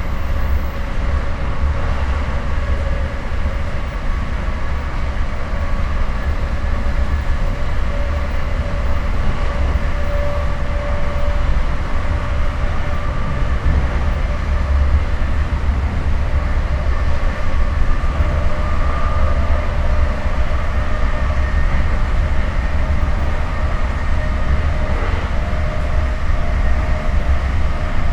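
Interior of an Amtrak passenger rail car at speed: a steady, loud low rumble of wheels and running gear, with faint steady whining tones above it.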